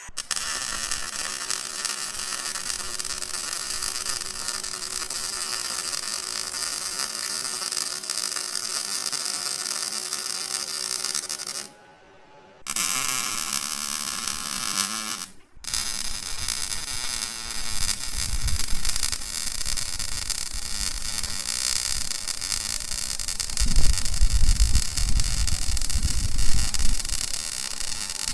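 MIG welding arc crackling and hissing steadily. The arc breaks off briefly about twelve seconds in and again about three seconds later, and the later stretch carries more low rumble.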